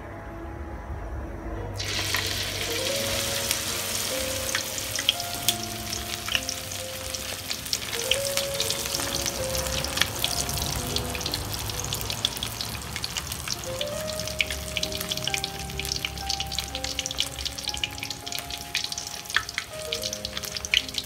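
A ladleful of batter hits hot oil in a wok about two seconds in, and the oil sizzles and crackles with sharp pops as it deep-fries. Background music with a melody of held notes plays underneath.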